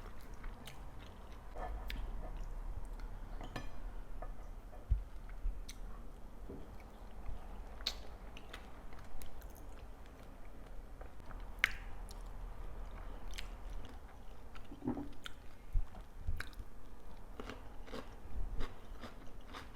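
Close-up chewing and biting of food, with scattered small wet clicks and crunches.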